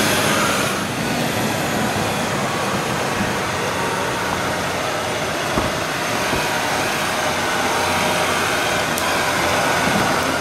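Land Rover Discovery 4's engine running steadily under load as the vehicle crawls up a steep rocky climb, with one short knock about halfway through.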